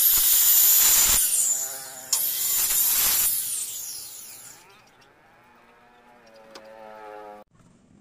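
Handheld electric circular saw cutting through a teak beam in two loud passes of about a second each, then its motor whining as it winds down. The sound stops suddenly near the end.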